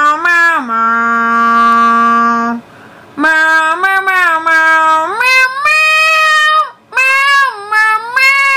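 A high, cartoonish voice singing a melody in drawn-out notes, one held flat for about two seconds, with short breaks about three seconds in and just before the end.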